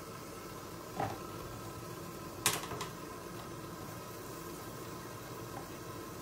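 Steady hiss of a covered pan of green tomato and dried fish curry cooking on a gas burner. There is a soft knock about a second in and a sharp click about two and a half seconds in.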